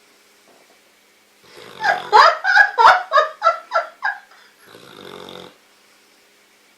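Dog snoring in its sleep: a loud run of quick snorts, about four a second, lasting a couple of seconds, then a softer single snoring breath about five seconds in. The owners tag this snoring as sleep apnea.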